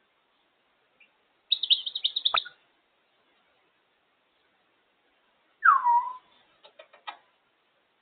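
African grey parrot vocalizing through a home security camera's microphone. About a second and a half in comes a burst of rapid high chirps ending in a sharp click. Then a downward-gliding whistle, followed by a few quick clicks.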